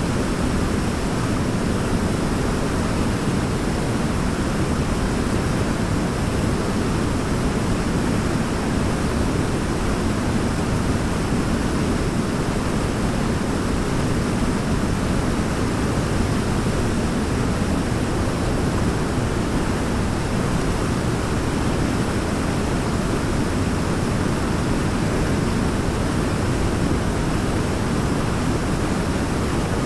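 Waterfall: a steady, deep rush of falling water, unchanging throughout.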